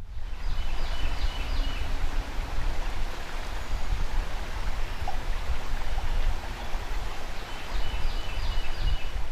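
Steady outdoor ambience of flowing river water, with wind rumbling on the microphone. A bird sings a short run of high chirps about half a second in and again near the end.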